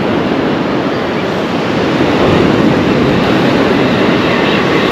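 Loud, steady rush of surf breaking on the beach mixed with wind buffeting the microphone, swelling a little about halfway through.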